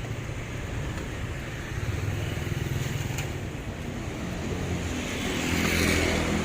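Road traffic: motor vehicle engines running steadily, with one passing louder near the end.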